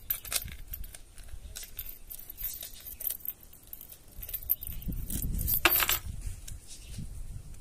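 Small metal hardware clinking and rattling as it is handled, in a run of light ticks and clicks, with one sharper, louder clink a little past halfway over a brief low rumble of handling.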